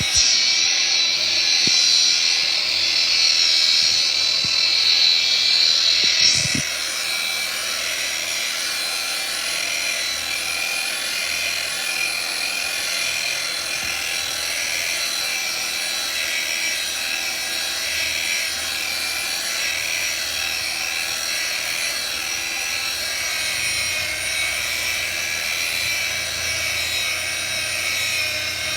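Power sander running against concrete: a steady whining machine noise, louder and harsher for about the first six seconds, then a little quieter and even.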